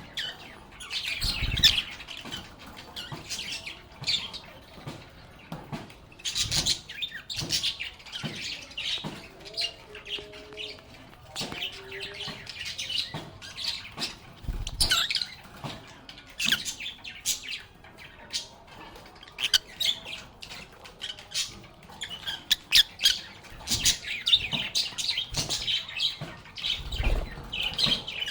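Lovebirds chirping and chattering, with sharp high chirps and squawks coming in quick runs, and a few short low thumps scattered among them.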